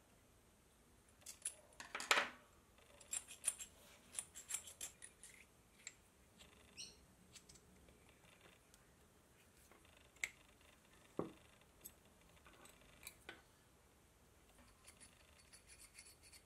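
Faint small metal-on-metal clicks, taps and scrapes of hand assembly: a hex key working a grub screw in a steel annular-cutter holder, then an annular cutter and its pilot pin being fitted into the holder. The ticks are scattered and busiest in the first few seconds, with a few single clicks later on.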